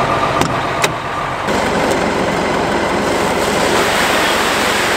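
Engine running, with two sharp clicks of a truck door handle being worked in the first second. From about a second and a half in, the steady running of a forklift engine takes over.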